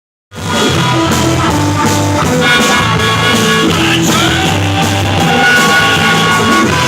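Rock music with guitar and drums, starting abruptly just after the beginning.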